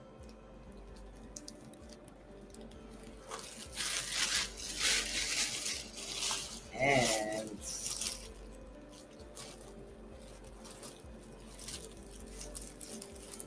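A clear plastic bag crinkling and tearing as it is pulled open by hand, loudest from about four to eight seconds in, over faint background music.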